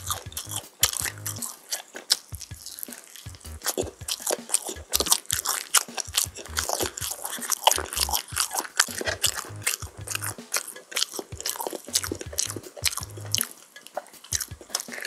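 Close-miked chewing and biting of crispy-coated oven-roasted chicken: dense, irregular crunching all through, with a fresh bite into a piece near the end.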